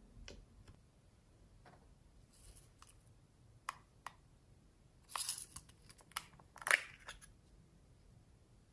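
A small plastic pencil-sharpener case being handled and snapped open: scattered light clicks, then a few louder crinkly, rustling bursts about five and seven seconds in.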